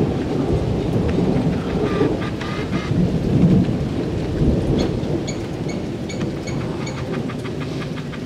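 Thunder rumbling over steady heavy rain. The rumble is heaviest in the first half and slowly dies away, and a run of faint, evenly spaced high chirps comes through the rain in the second half.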